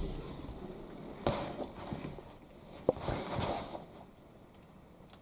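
A door being opened: a soft knock about a second in, then a sharp click near the middle, with a short scraping rustle after it.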